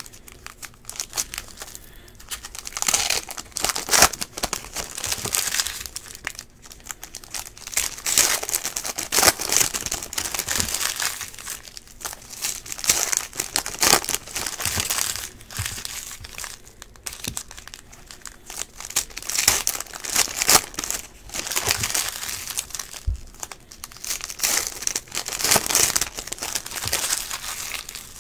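Foil wrappers of Panini Prizm trading-card packs being torn open and crinkled by hand, in repeated bursts of crackling.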